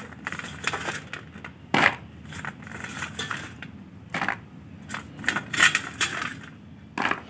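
Handfuls of oil-coated green chillies dropped and shuffled by hand into a plastic storage box: irregular light knocks and rustles against the plastic, a few of them sharper.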